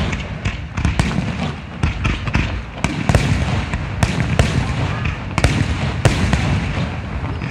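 Aerial firework shells bursting in quick succession, a dozen or so sharp bangs over a continuous low rumble.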